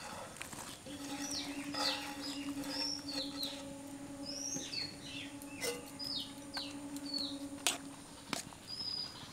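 Small birds chirping and whistling over and over in short, high, often falling notes. A steady low hum runs under most of it, stopping near the end, and a few sharp knocks sound.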